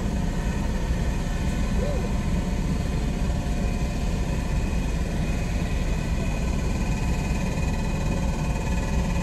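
Car engine idling, a steady low rumble heard from inside the car.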